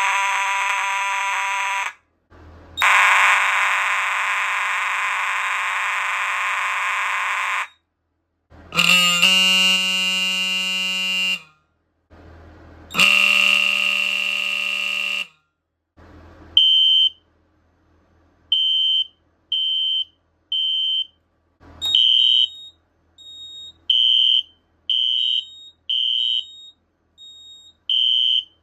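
Old mechanical fire alarm horns sounding in turn on filtered DC and full-wave rectified power: four long, loud, buzzing blasts of a few seconds each, the last two lower in pitch. After that a high-pitched horn sounds in short beeps about a second apart, in small groups with pauses between.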